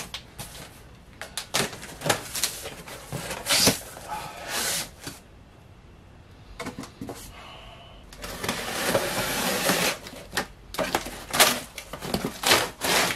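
A cardboard shipping box being cut open and pulled apart by hand: irregular knocks, scrapes and rustles of cardboard. A longer rasping stretch of about two seconds starts about eight seconds in.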